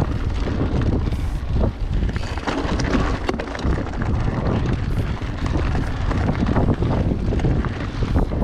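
Wind buffeting the microphone as an Orbea Oiz mountain bike descends a loose gravel trail at speed, with the tyres crunching over stones and the bike rattling in short clicks throughout.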